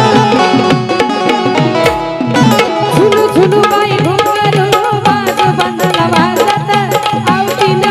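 Live Marathi folk devotional song: a steady hand-drum beat with melodic accompaniment, and a woman's singing voice comes in about two and a half seconds in.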